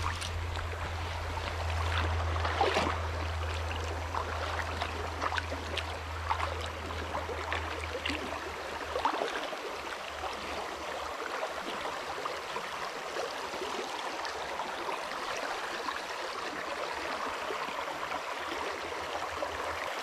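Shallow river current flowing and gurgling over rapids, a steady rush of water with small scattered ticks and splashes. A low steady hum runs under it and fades out about eight seconds in.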